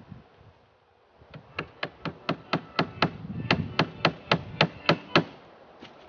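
A hammer driving chicken wire staples into the wooden frame of a raised bed. It gives a quick run of sharp blows, about four a second, with a short pause midway.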